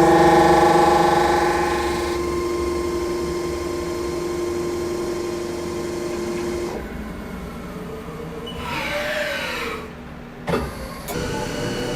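CNC milling machine running its cutting program. A steady machine whine cuts out about seven seconds in, then pitches sweep down and up. A sharp clack comes about ten and a half seconds in, and steady running resumes.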